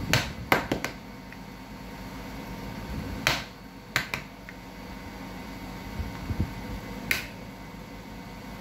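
Sharp taps and clicks from a soldering iron and a circuit board being handled on a workbench: a quick cluster of four in the first second, then single clicks about three, four and seven seconds in, over a faint steady hum.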